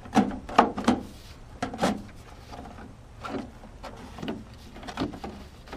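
A 4-inch plastic drain pipe and downspout adapter knocking and scraping as it is worked up over a downspout, a string of sharp knocks with rubbing between them, loudest in the first two seconds.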